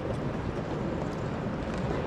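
Steady city traffic noise heard from a car on the move: an even, low rumble with no distinct events.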